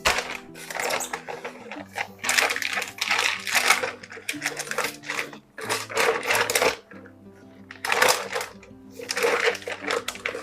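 Background music with held notes, overlaid by about eight irregular bursts of rustling and clattering handling noise.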